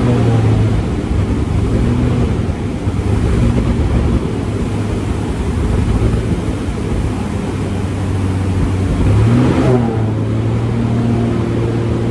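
Fuel-injected aircraft piston engine heard from inside the cockpit, surging: its speed rises and falls repeatedly, with a deeper dip and recovery about nine and a half seconds in. The surging is fuel starvation as the left wing tank runs very low.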